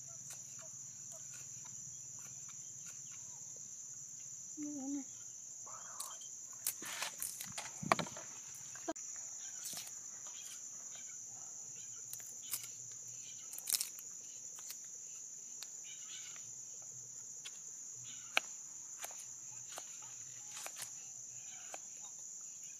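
Steady high-pitched drone of insects, with scattered clicks and taps of a knife cutting shallots and garlic on a wooden chopping board.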